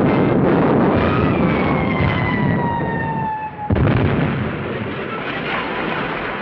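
Cartoon artillery sound effects: a dense, noisy barrage of gunfire, over which a shell's whistle falls slowly in pitch for about two and a half seconds. A sudden explosion comes just under four seconds in, and its noise trails on as debris rains down.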